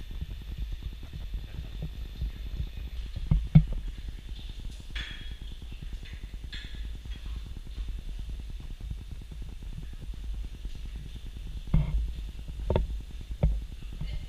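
Handling noise from a moving camera: a steady low rumble with a few scattered knocks, three of them close together near the end, and a couple of brief rustles.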